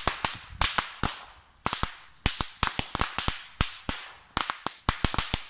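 Small firework stuck in mud going off: a rapid, irregular string of sharp cracks and pops over a hiss, with two brief lulls.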